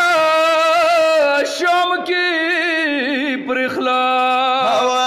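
A man singing a Pashto noha, a Shia mourning lament, drawing out long held notes that waver and glide in pitch.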